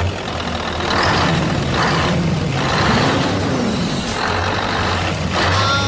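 Mini toy vehicle's engine running steadily with a low hum and a rev that rises and falls about halfway through.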